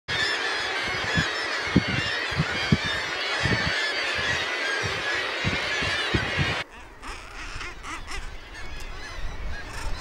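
A seabird nesting colony: a dense chorus of many seabirds calling over one another. It cuts off abruptly about two-thirds of the way in, leaving a much quieter background.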